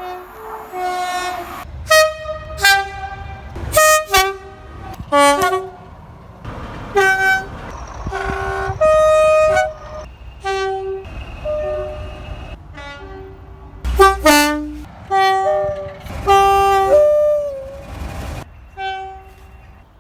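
Two-tone train horns sounding a string of short blasts, alternating between a low note and a high note, a few held for about a second, over a low rumble.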